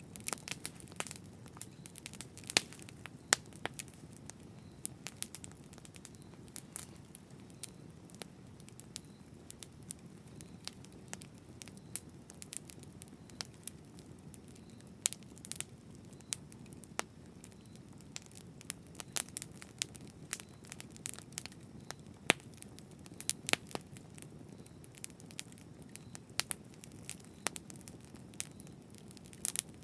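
Campfire burning: a steady low rumble of flames with sharp, irregular crackles and pops of burning wood throughout.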